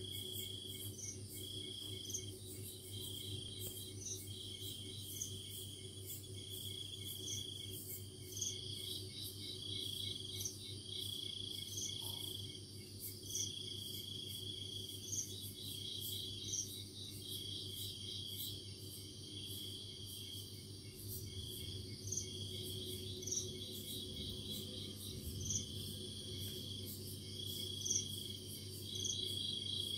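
Night insects calling, cricket-like: a high trill repeating in pulses of about a second, with short, higher chirps from a second caller every second or two. A low steady hum runs underneath.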